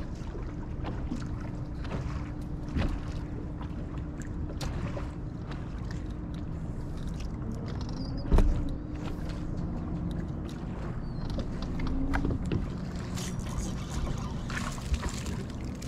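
Bow-mounted electric trolling motor on a bass boat humming steadily under wind and water noise, its pitch shifting slightly partway through as the speed changes. Light clicks throughout and a single thump about eight seconds in.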